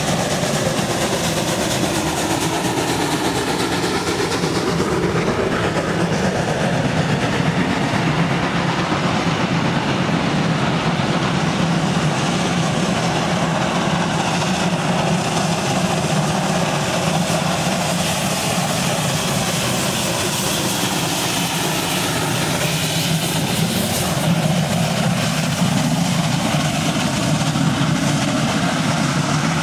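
Steam locomotive working hard as it hauls a passenger train up a steep incline, then its coaches rolling past on the rails.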